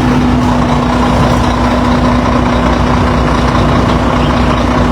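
Heavy vehicle engine idling steadily, an unchanging low hum.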